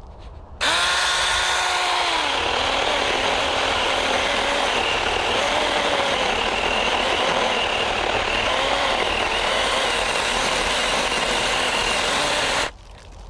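Small 6-inch chainsaw cutting into a tree trunk. It starts suddenly about half a second in with a short steady whine that drops in pitch as the chain bites into the wood. It then runs steadily with a slightly wavering pitch while it cuts, and stops suddenly near the end.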